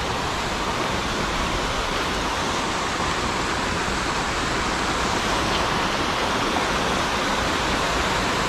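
Rushing creek water, a steady even rush with no breaks.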